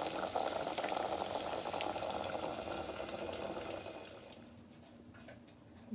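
Breaded chicken breast cutlets deep-frying in hot oil in a stainless steel pot: a steady bubbling sizzle with fine crackles, fading away over the last two seconds.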